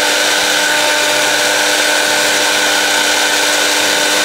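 Miyako single-speed blender's motor running steadily at high speed with no jar fitted: a constant whine over a hiss. It is the blender running again after its open motor winding was bridged.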